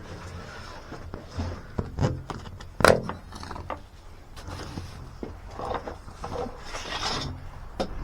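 Scattered knocks and scraping from equipment being handled, with a sharp knock about three seconds in.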